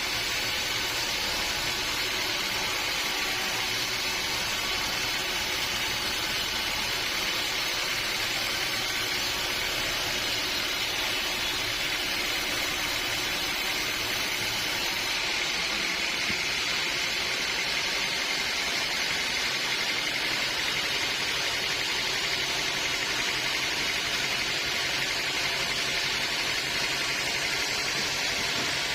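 Sawmill machinery running steadily: a constant hiss with a few faint steady hums beneath, unchanging throughout.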